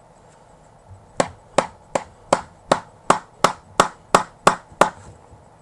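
A tin of Copenhagen Extra Long Cut Natural dip being packed: eleven sharp knocks, a little under three a second. It is the sound of a well-filled can packing tightly, the way a can should sound.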